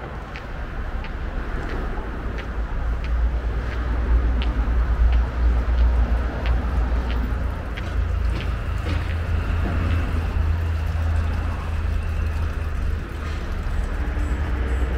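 Footsteps on a paved path, about two a second, over a steady low rumble that grows louder a few seconds in.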